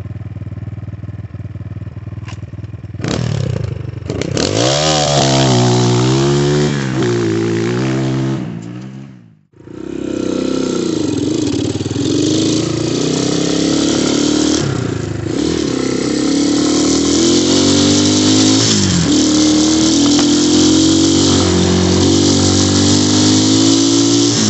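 2019 Xmotos 250cc dirt bike engine idling, then revving and pulling away, its pitch rising and falling through the gears. After a sudden brief drop-out it runs on at riding speed, its pitch climbing and dipping at each gear change.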